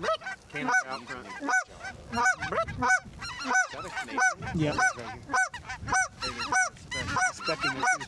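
Geese honking and clucking: a loud, continuous run of short, arched calls, two or three a second, many overlapping.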